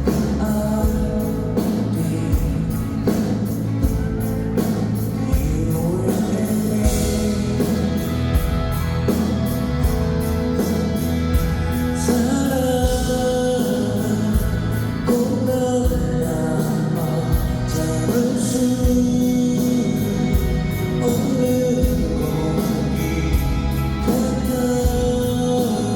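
Live pop-rock song with a male singer's voice over a band, driven by a steady drum beat with regular cymbal ticks.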